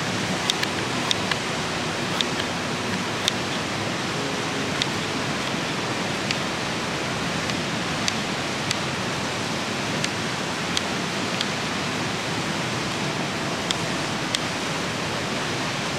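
Kitchen knife slicing a red onion, the blade clicking against the wooden cutting board about once a second at an uneven pace, over the steady rush of river water.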